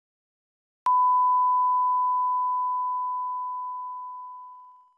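A single electronic beep tone, one steady pure pitch, starting abruptly about a second in and fading away slowly over about four seconds.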